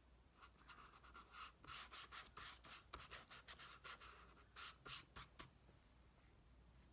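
Paintbrush stroking paint onto paper: faint, quick, scratchy strokes, several a second.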